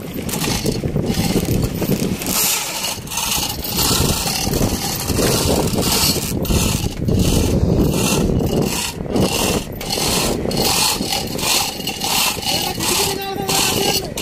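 Loud fishing-boat deck noise: an engine running as a steady low rumble, with water splashing against the hull, irregular knocks and scrapes, and men's voices calling out now and then.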